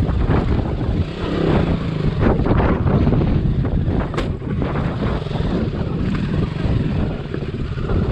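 Motorcycle engine running, its pitch rising and falling, with wind rushing over the microphone. A single sharp knock comes about four seconds in.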